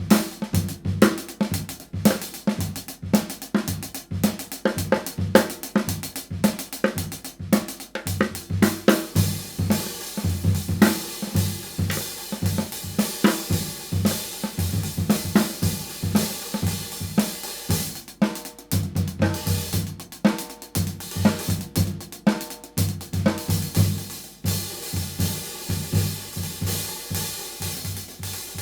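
A drum kit groove played with 16-inch paper-thin B20 bronze hi-hats, over kick and snare hits. The cymbal wash thickens through the middle and drops back about four-fifths of the way in.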